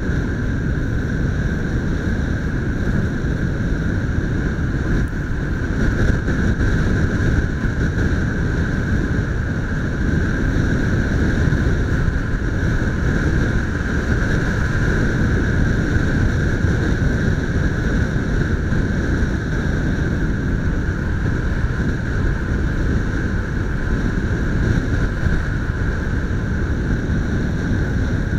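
Motorcycle riding steadily along a road, heavy wind rush on the mounted camera's microphone over the running engine, with a steady high whine.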